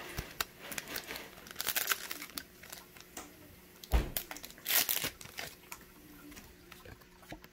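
Foil trading-card booster-pack wrapper crinkling as it is handled, in irregular crackles, with a sharp knock about four seconds in.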